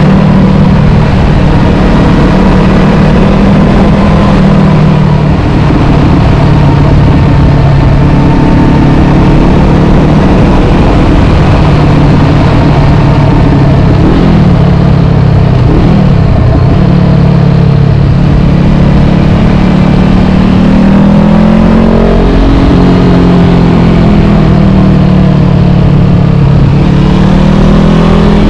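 Honda CB500F's parallel-twin engine running at steady road speed over wind noise. The revs drop and climb again a few times in the second half as the rider comes off and back onto the throttle.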